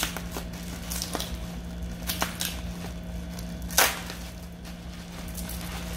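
Large-bubble plastic wrap being pulled open and crinkled by hand, with a few sharp snaps, the loudest about four seconds in.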